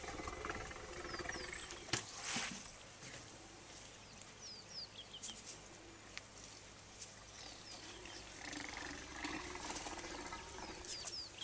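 African elephant rumbling low, with short, high, falling bird chirps scattered through and a sharp knock about two seconds in.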